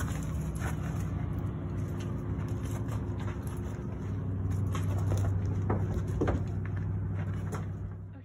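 A vehicle engine idling steadily, a low even hum, with scattered light knocks and scuffs over it. It fades out near the end.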